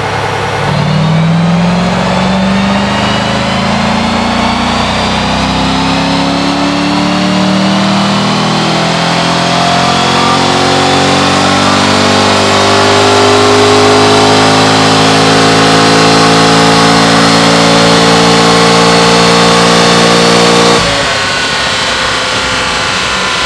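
Car engine under load, its pitch climbing steadily for about ten seconds and then holding high, cutting off abruptly about twenty seconds in; a rougher, noisier engine sound follows.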